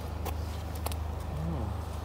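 A steady low rumble, with a couple of light clicks and a brief voice about one and a half seconds in.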